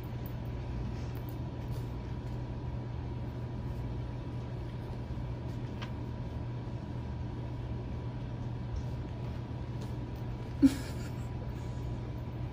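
Steady low background hum with a faint steady higher tone over it, and one short voice-like sound about ten and a half seconds in.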